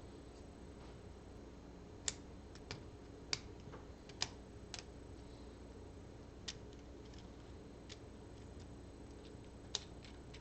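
Scattered light clicks and taps of plastic LEGO Technic parts being handled and fitted together, about eight over ten seconds, with a faint steady hum underneath.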